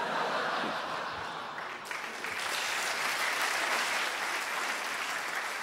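Theatre audience applauding in response to a joke. The applause starts suddenly and holds steady.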